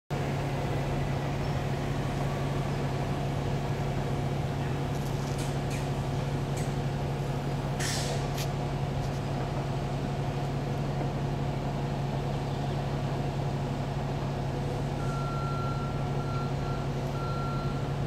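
Heavy asphalt-paving machines, a double-drum road roller among them, running with a steady low engine hum. There is a short hiss about eight seconds in, and a reversing alarm starts beeping near the end.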